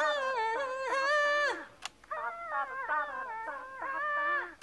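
A woman singing two high phrases of held, slightly wavering notes that step down in pitch, with a short break between them.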